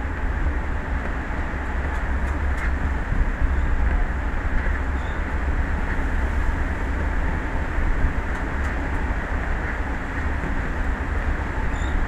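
Steady rushing noise of wind and sea with a strong low rumble, its level wavering slightly.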